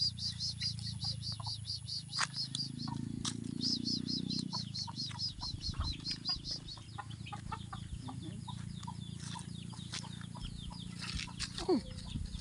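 Chickens calling: a fast, even run of short high peeps, about five a second, that stops about seven seconds in, followed by fainter scattered calls.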